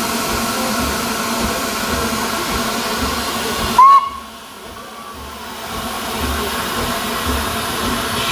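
The Flying Scotsman, an LNER A3 Pacific steam locomotive, standing with steam hissing steadily. About four seconds in there is one short, very loud whistle toot, after which the hiss drops and slowly builds back.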